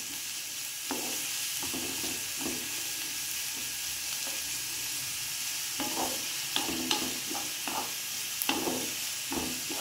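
Chopped onion sizzling in hot mustard oil in a nonstick frying pan. A wooden spatula scrapes and stirs it in repeated strokes, which come more often in the last few seconds.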